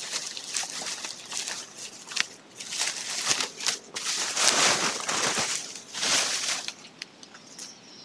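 Dry straw rustling and crackling as it is handled and spread over a roof, in a run of uneven swishes that are loudest around the middle.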